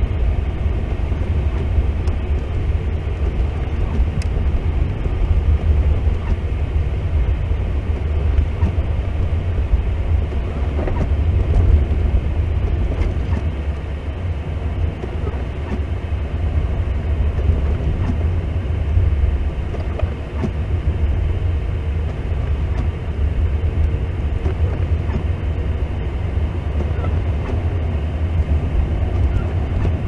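Steady low rumble of a car driving slowly on a snow-covered road, tyre and engine noise heard from inside the cabin, with a few faint clicks.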